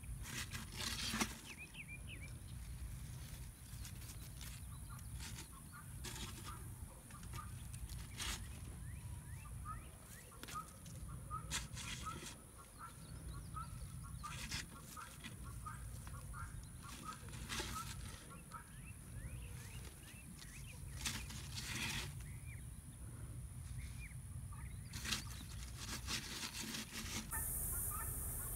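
Farm poultry calling in the background, with many short, repeated calls. Under them run a steady high-pitched hum and a low wind rumble, with a few soft knocks about every three to four seconds.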